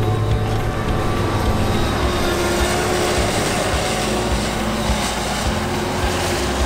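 Claas Jaguar 980 self-propelled forage harvester at work, its 850 hp MAN V12 diesel running steadily under load while it chops whole-crop rye and blows it into a trailer.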